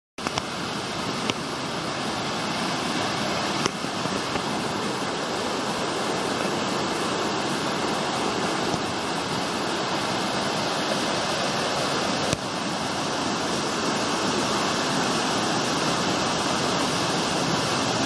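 The steady rush of white water pouring down the stepped rock cascades of Liffey Falls, heard close up, with a few brief clicks over it.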